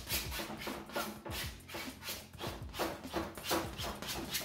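Palette knife scraping paint across a large stretched canvas in quick repeated strokes, about three a second.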